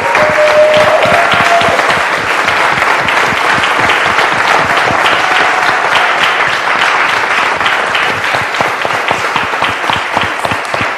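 Congregation applauding: a steady round of many hands clapping, easing off slightly near the end.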